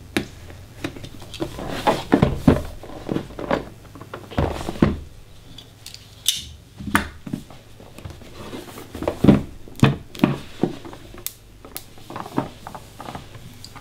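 A cardboard box being unpacked by hand: a knife blade slitting its tape seal near the start, then the lid sliding off and the inner lid lifting, with irregular scrapes, rustles and small knocks of card.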